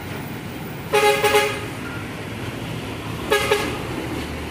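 Vehicle horn honking twice over steady passing traffic: a stuttering run of quick toots about a second in, then a single shorter toot a couple of seconds later.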